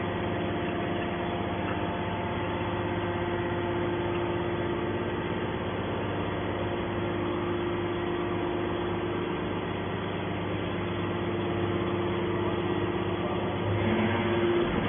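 Hydraulic scrap metal baler running, a steady machine hum of its motor and hydraulic pump that grows a little louder near the end.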